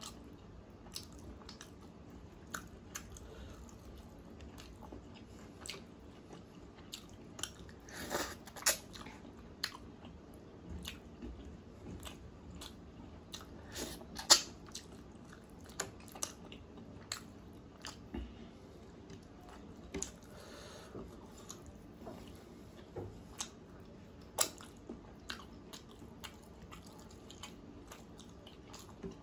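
A person chewing and biting into chicken pieces in curry gravy, eaten by hand: a run of small mouth clicks and chewing with a few sharper bites, the loudest about 8, 14 and 24 seconds in.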